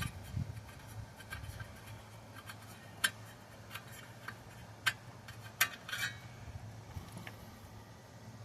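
Faint, scattered metallic clicks and clinks of a hand ratchet and small bolts being handled on the engine's sheet-metal covers, a few sharp ones spread over several seconds, over a low steady hum.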